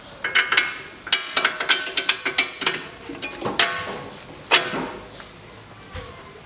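Metal clinks and knocks as a greased bolt is worked through the front strut's lower clamp and the steering knuckle: a quick run of short ringing clicks, then two louder knocks near the middle, before the bolt sits home.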